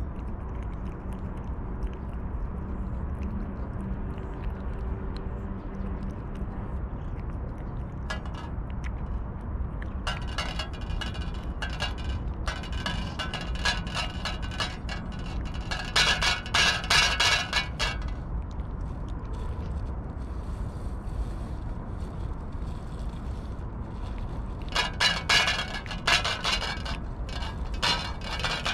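A cat eating wet food from a stainless steel dish: bursts of rapid chewing and licking clicks, with clinks and scrapes against the metal bowl, about ten seconds in and again near the end, over a low steady outdoor rumble.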